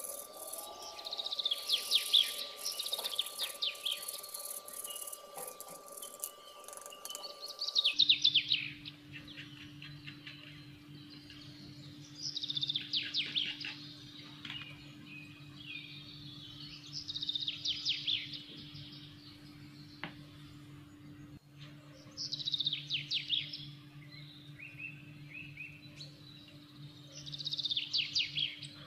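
Birds chirping in short bursts of rapid high notes, one burst about every five seconds, over a faint steady hum.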